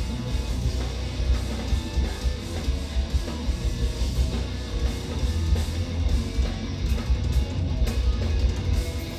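Live instrumental progressive metal band playing: heavily distorted eight-string electric guitars over a drum kit, with a dense, rapidly pulsing low end.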